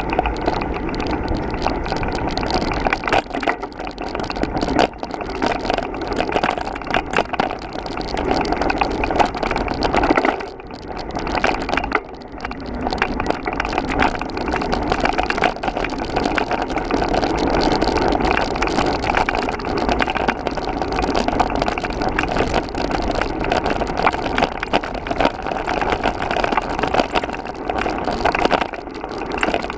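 Trek Roscoe 7 hardtail mountain bike with 2.8-inch tyres rolling over a dry, rough dirt trail: a steady crunch of tyres on dirt and grit with constant rattling and clatter from the bike over bumps. It eases off briefly about ten seconds in.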